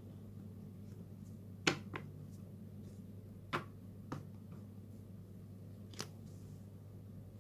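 A thick stack of flipbook paper handled in the hands: about five short, sharp taps and clicks of the pages, the first the loudest, over a faint steady hum.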